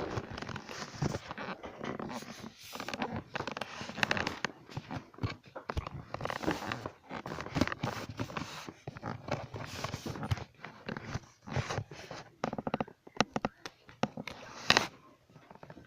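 Rustling, scraping and knocking of things being handled and moved about, with irregular clatters and one sharper knock near the end.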